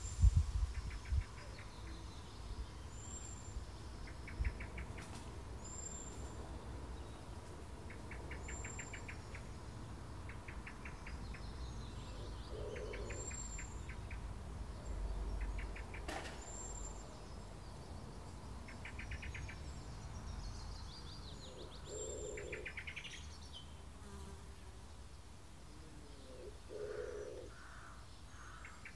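Garden ambience with small birds and insects. A short, high note repeats about every second and a half, and brief bursts of rapid ticking chirps recur every second or two. A few lower calls come in about halfway through and near the end, over a faint low rumble.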